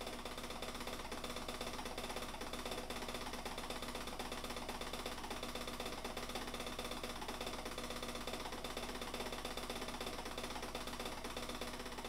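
A small machine running steadily: a hum with a rapid, even clicking.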